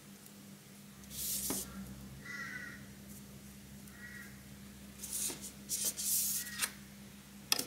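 A plastic protractor and pen are handled on paper, giving a sliding, rustling scrape about a second in, more scraping from about five to nearly seven seconds in, and a sharp tap near the end. A short bird call sounds a few times in the background.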